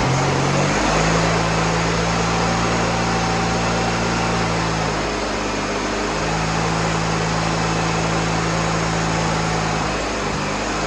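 Freshly rebuilt VW Beetle 1641cc dual-port air-cooled flat-four running steadily, its speed sagging briefly about five seconds in. The owners think the fuel pump is tired and not delivering enough fuel.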